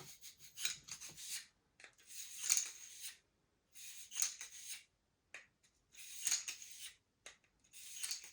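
Copper wire cleaning brush scrubbing through a 9mm pistol barrel: repeated back-and-forth scraping strokes, each about a second long, with short pauses between them.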